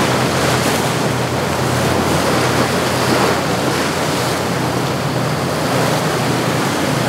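Wind buffeting the microphone over the wash of surf and waves, with a steady low hum of boat engines underneath.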